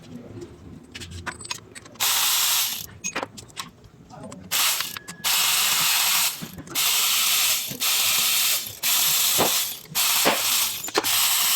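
Repeated bursts of hissing spray, about eight, each a second or less, starting and stopping sharply, with a few light clicks in the gaps between them.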